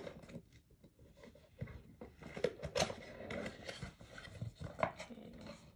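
Irregular rustling, clicks and small knocks from cards and their packaging being handled.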